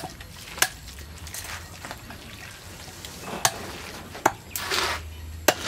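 Raw diced pork with chopped chilies being squeezed and mixed by hand in a metal tray: wet squelching, with a few sharp clicks and one longer squelch a little before five seconds in.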